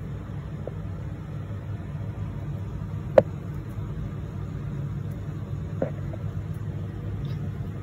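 Steady low background hum, with a sharp click about three seconds in and a fainter one near six seconds as a wire whisk taps the plate while being pressed into balls of potato dough.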